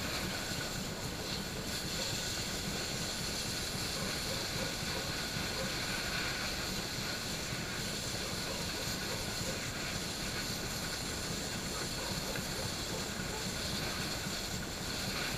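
Fan-driven fiddlehead cleaning machine running steadily, its fan blowing air through the fiddleheads while a garden hose sprays water over them: a continuous whooshing noise with a low rumble.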